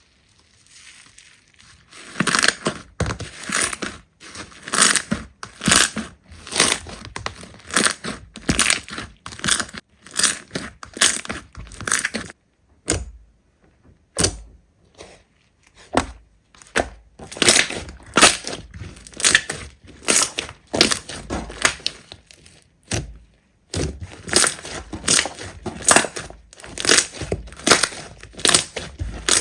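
Slime being squeezed and pressed by hand, giving short crackling, crunching bursts about one or two a second, with brief pauses twice.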